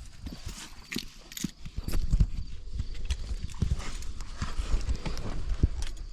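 GMC Terrain's 2.4-litre four-cylinder engine turning over on the starter in a rhythmic churn without catching: a crank-no-start, as the fuel pump is not running.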